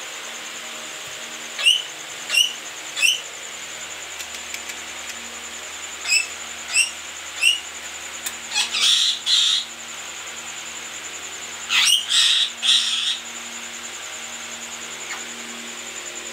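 Short, high bird-like chirps in little runs, then two longer rasping chirpy bursts about nine and twelve seconds in, over a faint steady high whine.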